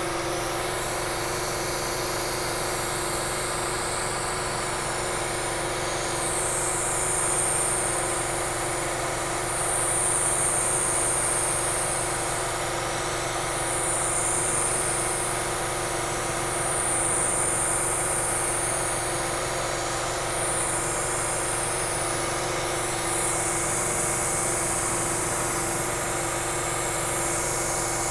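Milling machine spindle running steadily while an end mill takes a 70-thousandths-deep pass, cutting slots into a swage block. A high hiss swells and fades every few seconds over the steady machine tone.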